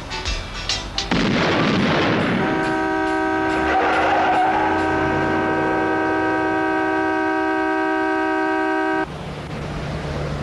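A loud boom about a second in, followed by a vehicle horn blaring on one steady chord for about six and a half seconds before cutting off suddenly.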